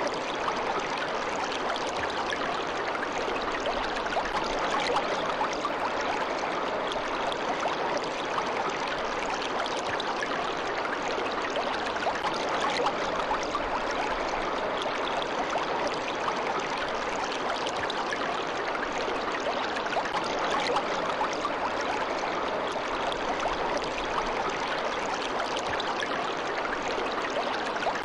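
Water of a stream running steadily, an even rushing sound without breaks.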